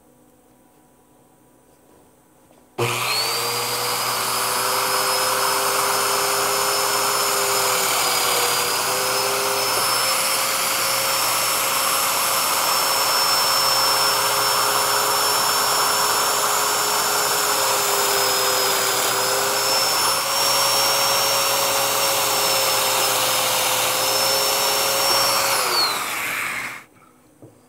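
Festool Domino joiner with its hose-connected dust extractor running, plunge-cutting a row of mortises in a mahogany handle blank. It starts abruptly about three seconds in and runs steadily, its whine dipping slightly in pitch a few times, then winds down near the end.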